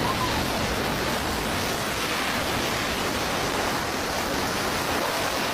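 A loud, steady hiss of even noise with no pitch or rhythm.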